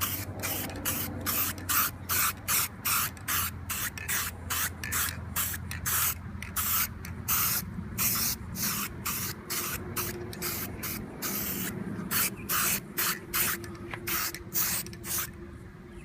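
Aerosol spray can of gloss black enamel fired in quick short puffs, about two to three a second, laying a base coat on a wheel rim.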